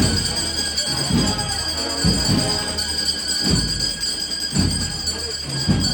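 Procession band music playing, with deep drum beats about once a second.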